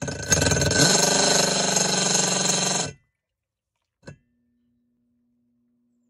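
Nictemaw portable washing machine's motor running the agitator in a tub of water. It spins up with a rising whine, runs steadily for about three seconds, then stops abruptly. A single click follows about a second later.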